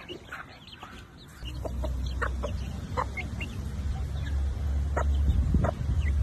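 Chickens clucking in short, separate calls. About a second and a half in, a steady low rumble comes in and stays, louder than the clucks.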